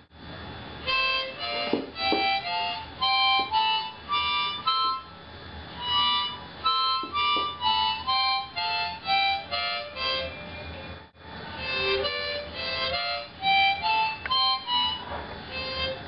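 Swan 10-hole diatonic harmonica played one note at a time, stepping up and down the sargam scale (sa re ga ma pa dha ni sa). There is a short break about eleven seconds in.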